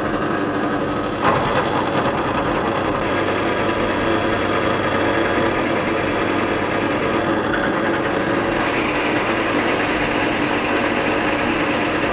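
Pillar drill (drill press) running steadily with a constant motor hum; about a second in the sound jumps louder and harsher and stays that way.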